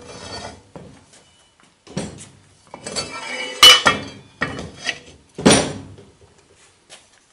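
Steel plate being slid along a keyed steel shaft and set against a round steel disc: metal clinks and scrapes, with the loudest sharp clink about three and a half seconds in and further knocks around two and five and a half seconds.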